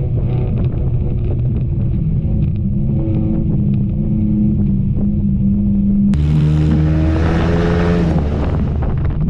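Enduro race car engine running steadily under throttle, its pitch drifting a little. About six seconds in the sound changes abruptly to a louder, brighter engine note with a deep low rumble.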